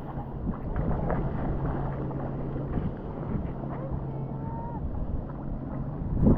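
Steady low hum of a boat motor running, under wind and water noise, with a short loud knock or splash near the end.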